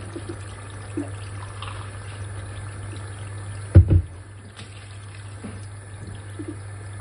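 Macaroni in tomato sauce simmering in a frying pan, with faint bubbling and small pops over a low steady hum. A short double thump a little past halfway is the loudest sound.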